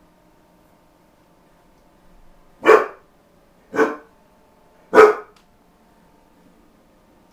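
Akita dog barking three times, a little over a second apart.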